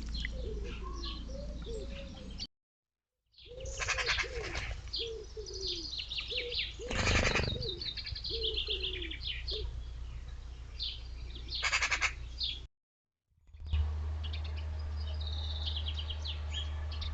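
Pigeons or doves cooing in repeated low arched notes while small birds chirp and twitter higher up, with a few short bursts of rustling noise. The sound cuts out completely twice for under a second, and after the second gap a steady low hum runs under the chirping.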